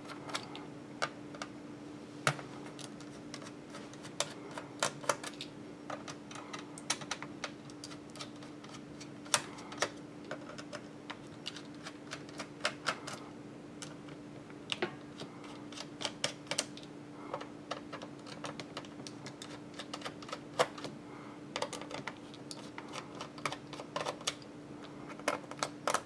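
Small Phillips screwdriver loosening the screws of a Dell Inspiron 1525 laptop's plastic bottom cover: irregular light clicks and taps as the driver tip seats and turns the screws.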